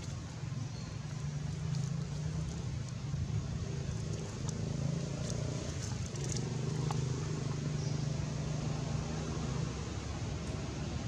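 A steady low engine-like hum, with a few faint light clicks and rustles about halfway through.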